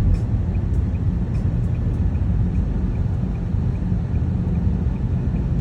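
Steady low road and engine rumble heard from inside a moving vehicle on a snowy highway, with a faint, regular ticking about twice a second.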